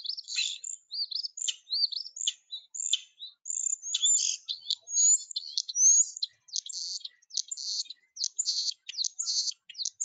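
European starling song: a fast, varied jumble of chirps, clicks, buzzy rattles and whistles, including a rising whistle about six seconds in. The mix of clicks and rattles sounds like a beatbox.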